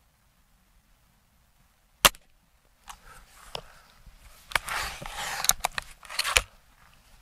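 Gamo Swarm Magnum Gen 3i break-barrel air rifle firing once, a single sharp crack about two seconds in. The barrel is then broken open and cocked for the next shot, a run of clicks and rattles, with a sharp click as it closes near the end.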